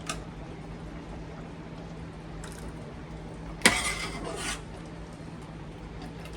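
A single sharp clink of dishware or a utensil about three and a half seconds in, followed by a brief rustle, over a steady low hum.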